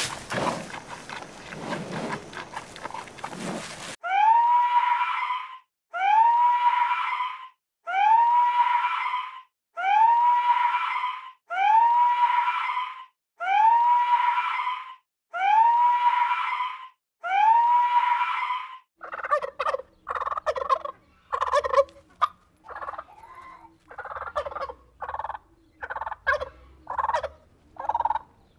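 About four seconds of crunching and rustling from a giant panda chewing bamboo. Then a fur seal gives eight long, loud calls, each rising into a held tone, about one every two seconds. For the last third, a male turkey gobbles in quick, short bursts.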